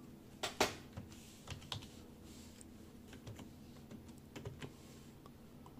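Computer keyboard typing: irregular key clicks, with the loudest pair about half a second in, over a faint steady low hum.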